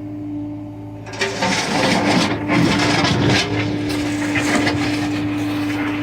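John Deere excavator at work: its diesel engine runs with a steady hum, and about a second in a loud, rough scraping and rattling of the machine working starts. It settles after a couple of seconds into a steadier rushing noise over the engine.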